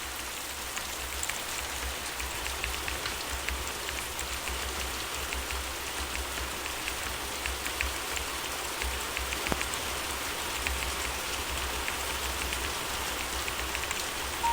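Gentle steady rain falling, an even hiss with many separate drops ticking on a surface and a low rumble underneath.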